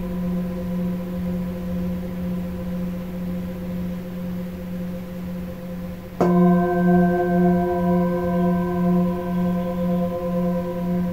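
Hand-held Himalayan singing bowl ringing with a steady hum of several tones. It is struck once with a felt mallet about six seconds in, then rings louder with a slow wavering beat, about two pulses a second.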